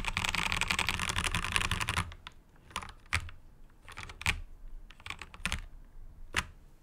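Ziyoulang K68 mechanical keyboard being typed on: a fast, dense run of keystrokes for about two seconds, then slower single key presses, each a separate clack.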